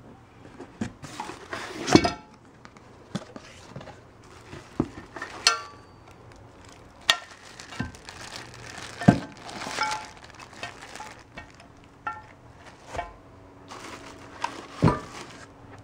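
Plastic wrapping crinkling and cardboard rustling as packing is handled, with irregular knocks and a few short metallic clinks from the parts.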